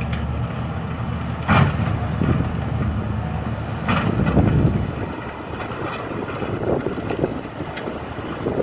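Caterpillar 950F wheel loader's diesel engine running as the machine works loose soil, with louder surges about a second and a half in and again around four seconds.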